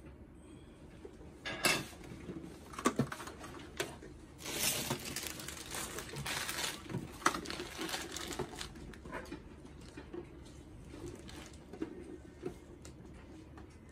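A clear plastic bag crinkling as it is handled for a couple of seconds in the middle, among scattered knocks and clicks of a plastic printer case being moved about on a desk.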